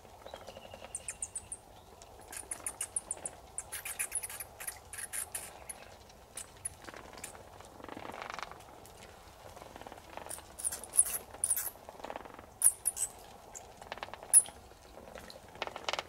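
Bats squeaking inside a wall cavity: rapid, high-pitched chee-chee chirps in bursts, the calls that were first taken for a nestling bird's. A brief rustle comes about eight seconds in.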